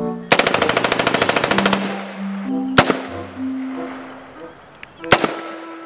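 Gunfire sound effect: a rapid burst of automatic fire lasting over a second, then two single shots a couple of seconds apart, over light background music.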